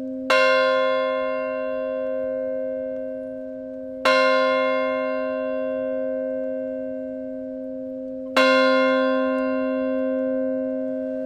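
A large churchyard bell struck three times, about four seconds apart. Each strike rings out and slowly dies away, and a deep steady hum carries on beneath from one strike to the next.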